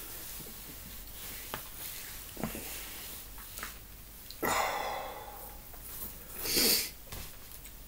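A man breathing hard through his mouth after a superhot pepper chip: a long hissing breath out about four and a half seconds in, and a shorter, louder one near the end.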